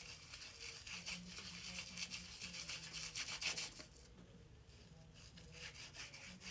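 Palms of two hands rubbing back and forth against each other, a faint quick brushing that stops about four seconds in and picks up again briefly near the end.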